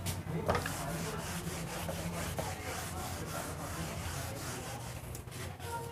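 Handheld whiteboard eraser wiping marker writing off a whiteboard: a continuous scrubbing rub as it is swept back and forth over the board.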